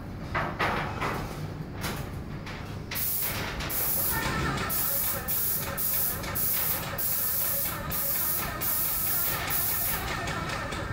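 Graco airless paint sprayer gun hissing in about ten short bursts with brief breaks, starting about three seconds in, over a low steady rumble.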